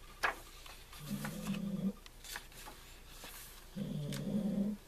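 A pet dog breathing heavily, two long, low breaths about two and a half seconds apart. Soft paper clicks come from notebook pages being turned.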